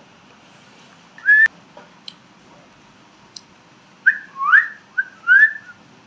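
Pet rose-ringed parakeet whistling: one short note about a second in, then a quick run of four whistles near the end, the longer ones sliding upward in pitch.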